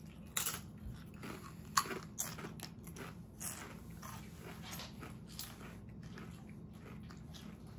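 Doritos tortilla chips crunching as they are bitten and chewed. A few sharp crunches come in the first two seconds, then a run of softer crunching that thins out near the end.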